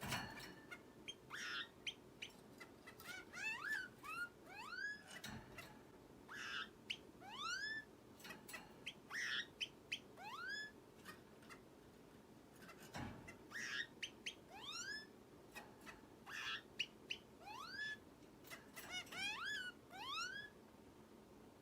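Red-billed long-tailed finch calling: runs of clear whistles that each sweep upward in pitch, three to five in a row, mixed with short sharp chirps, sounding like an alarm.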